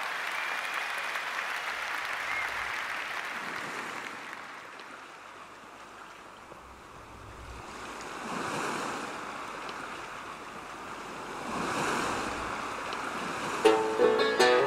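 Audience applause dying away, followed by two soft rushing swells of noise. Plucked-string music starts near the end.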